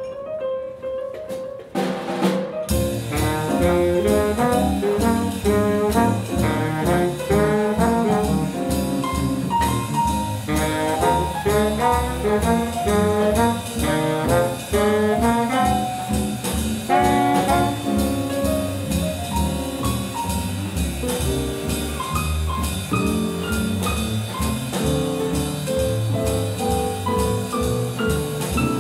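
Jazz big band playing a swing chart live: a trumpet and trombone section over drum kit. About a second in, the drums and cymbals drop out under a held brass chord, and the full band with drums comes back in near three seconds.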